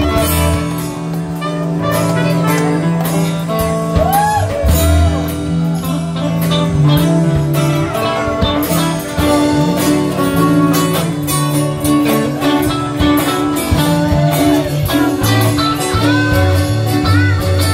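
Live band playing an upbeat instrumental passage: strummed and picked guitars over drums, with a moving low line underneath and short sliding notes above.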